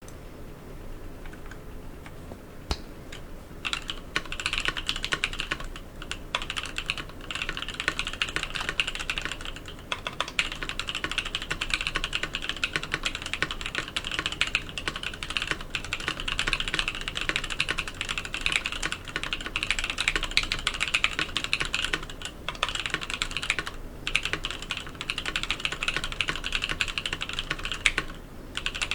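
Custom 65% mechanical keyboard typed on at a steady fast pace: lubed Novel Keys Cream linear switches on an FR4 plate with foam inside, under EPBT PBT keycaps, giving a dense run of muted key clacks with short pauses between bursts.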